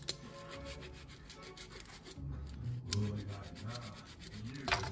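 Block of hard cheese being grated on a long rasp grater: a quick, uneven run of scraping strokes.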